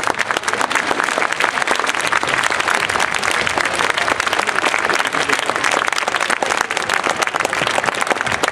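Indoor arena audience applauding: dense, steady clapping from many hands.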